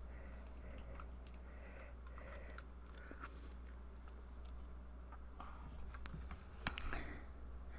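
Faint handling noises of small objects on a desk: scattered small clicks and taps, with a sharper run of clicks about seven seconds in, over a low steady hum.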